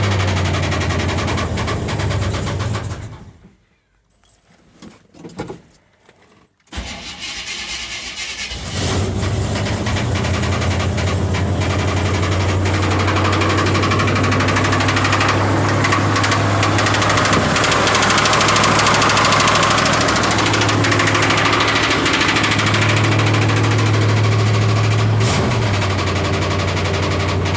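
Car engine running on a cold start with what the owner calls a little lifter tick. About three seconds in it cuts out. A few seconds later it fires again and settles into a steady fast idle.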